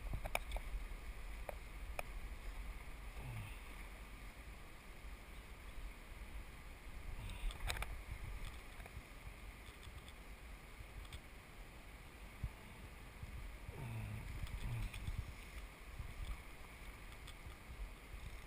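Steady rush of river water under a low rumble on the microphone, with a few sharp clicks and dull low thumps.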